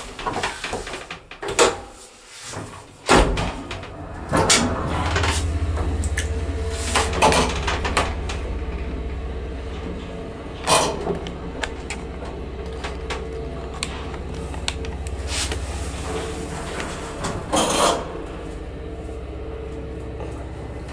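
1977 ZREMB traction elevator: a few clunks and clicks at the start, then about three seconds in the hoist motor starts with a sudden low hum. The car travels with a steady hum and a faint whine, broken by several knocks and clatters from the doors and car.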